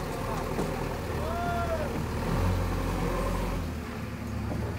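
JCB 3DX backhoe loader's diesel engine running under load as the machine moves over loose dirt. The engine note steps up a little over two seconds in.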